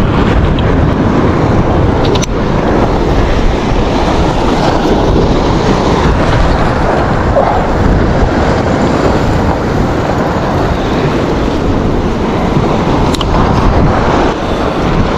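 Wind buffeting the microphone over waves washing against the jetty rocks: a loud, steady rushing rumble with no distinct events.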